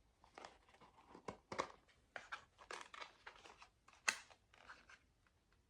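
Packaging being handled: quiet, irregular crinkling and rustling in short bursts as the lighter is worked out of it, with one sharper snap about four seconds in.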